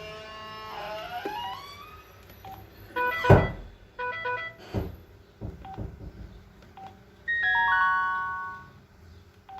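LG KU950 mobile phone ringtones playing: electronic synth melody with gliding tones at first, a loud sweeping whoosh about three seconds in, then short tone blips and a stepped run of held tones near the end.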